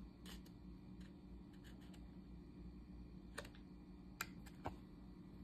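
Near silence with a few faint, scattered clicks of glossy trading cards being handled between the fingers.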